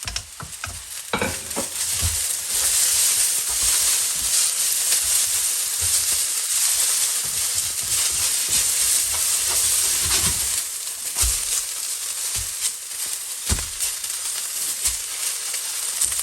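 Noodles, onions and spring onions sizzling in a hot wok as they are stir-fried, with a utensil knocking and scraping against the wok now and then. The sizzle swells about two seconds in and then holds.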